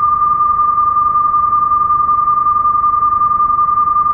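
Continuous broadcast test tone, a single steady pitch held without change, with faint hiss beneath it: the tone that runs with colour bars when a TV station signs off the air.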